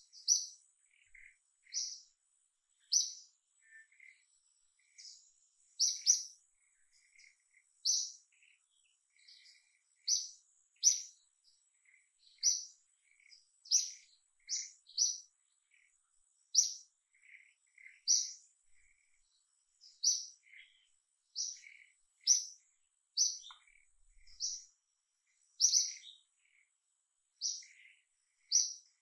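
A bird chirping over and over, with short sharp high notes about once a second and fainter, lower chirps between them, over a faint steady high-pitched whine.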